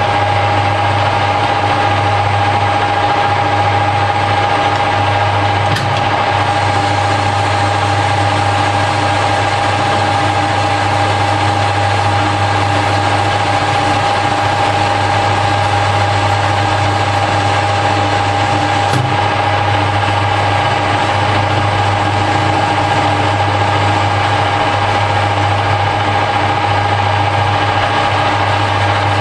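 Harrison L5 metalworking lathe running steadily while taking a turning pass along a bar, with a constant low hum and a steady high whine.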